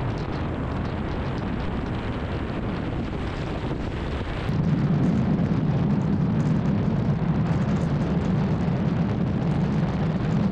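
Car driving: steady road and engine noise heard from inside the vehicle. About four and a half seconds in it grows louder, with a deeper hum coming in.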